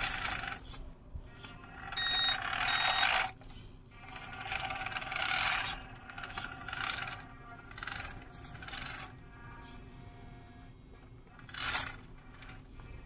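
Radio-controlled Linde H40 D model forklift's electric drive motor and gears whirring in repeated bursts as it drives and manoeuvres, with two short beeps about two and three seconds in.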